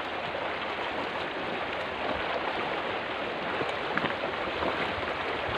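Shallow river water running, a steady rushing hiss.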